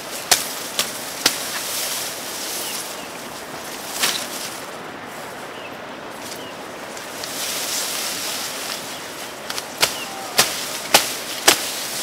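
Tall grass being cut by hand: sharp cracks as the thick stalks are chopped through. There are three in the first second and a half, one about four seconds in, and four about half a second apart near the end, over the rustle of the leaves being handled.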